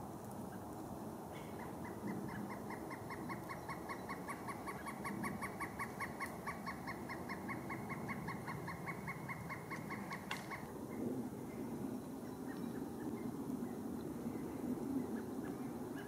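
A woodpecker calling a long, rapid series of evenly pitched notes, several a second, for about nine seconds. It starts a second or two in and stops about two-thirds of the way through.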